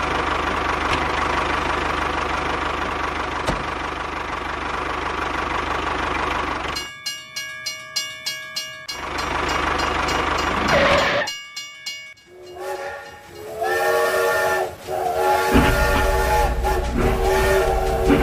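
Toy tractor's engine running steadily, then a rapidly pulsing tone, about five beats a second, for a couple of seconds. From about twelve seconds in, a toy steam train's whistle sounds in long held notes.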